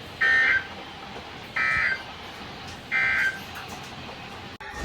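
Emergency Alert System SAME end-of-message data tones: three short, identical bursts of two-tone digital signalling about a second and a half apart, sent at the close of a National Weather Service warning broadcast.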